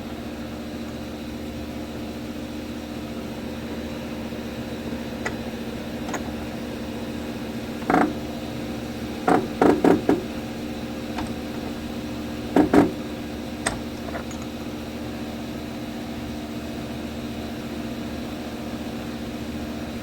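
A few short metal clunks and clicks from an idler pulley bearing and socket being pressed in a bench vise: one about eight seconds in, a quick cluster a second or two later, a pair just before the midpoint. Under them runs a steady machine hum.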